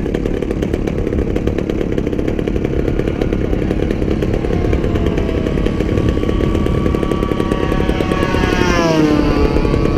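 Single-cylinder two-stroke gasoline engine (a DLE 35RA) of a large radio-control model Corsair buzzing in flight under power, with a steady low rumble beneath. Near the end the engine's pitch drops sharply as the plane passes by.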